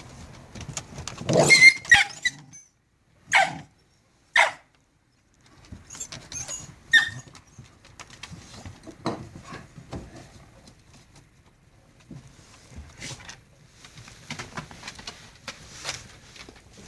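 Jindo dogs play-fighting: short dog vocal sounds and scuffling in irregular bursts. The loudest burst comes about a second and a half in, followed by two short sharp sounds a couple of seconds later.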